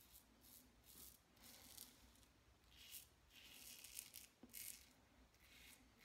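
Faint scrape of a Braveheart safety razor's Gillette Super Platinum blade cutting stubble through shaving lather on the neck, in short strokes about two a second.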